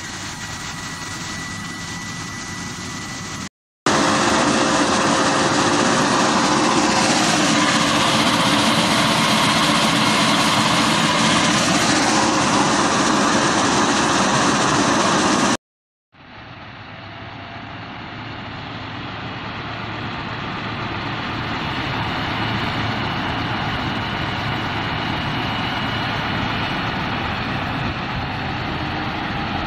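Diesel-driven fire-fighting robot and its water cannon running, a steady heavy engine noise mixed with the rush of a spraying water jet. It breaks off twice briefly. The loudest, densest rushing comes in the middle stretch, and in the last part the machine noise builds up over several seconds, then holds steady.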